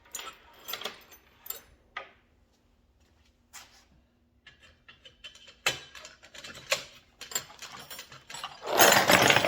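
Metal hand tools clinking and knocking as they are moved aside, with scattered clicks, a short lull, and a louder clattering rattle near the end.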